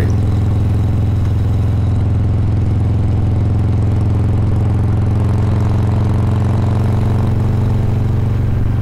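Harley-Davidson Heritage Softail's Milwaukee-Eight V-twin running steadily at cruising speed, a low, even drone that holds the same pitch throughout.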